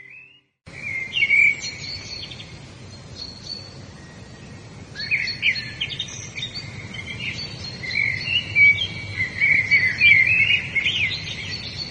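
Several songbirds chirping and singing in quick, sweeping phrases over a steady background hiss of outdoor ambience. It starts after a brief silent gap about half a second in, with the busiest singing in the second half.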